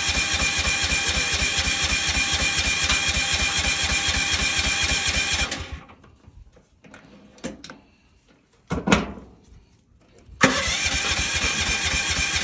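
Excavator engine cranking on its electric starter, turning over steadily without ever firing: it cranks but will not start. The cranking stops after about five and a half seconds, a few clicks and a knock follow, and it starts cranking again about ten seconds in.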